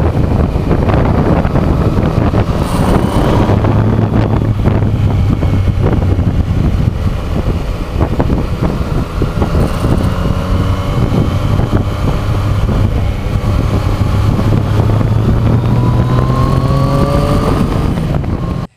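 Motorcycle engine running under way with wind noise on the bike-mounted microphone. The engine pitch rises in the last few seconds as it accelerates.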